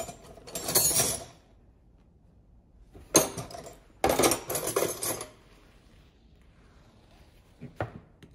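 Metal spanners and sockets clattering and clinking as a hand rummages through a plastic box of tools, in two bouts: one at the start and a longer one about three seconds in. A couple of short clicks come near the end.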